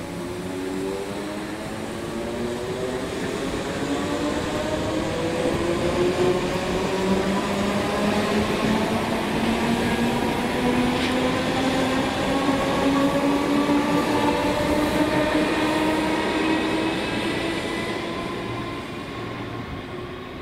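Class 313 electric multiple unit pulling away and accelerating. Its traction motors give a whine that rises steadily in pitch, with a running rumble under it. The sound grows louder, then fades near the end as the train draws off.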